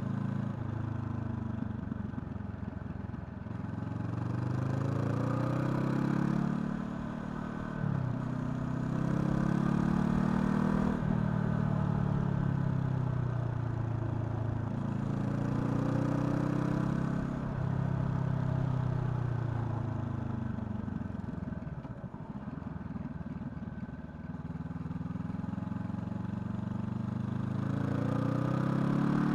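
Honda CL500's 471 cc parallel-twin engine pulling as it is ridden, revs climbing and falling again and again. The pitch drops sharply at gear shifts, runs down slowly through a long slow-down past the middle, and climbs again near the end.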